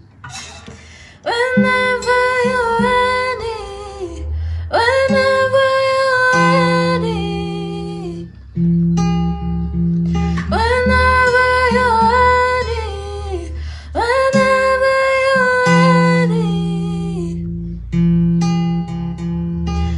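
A woman singing a slow song in sung phrases of a few seconds each, with acoustic guitar accompaniment.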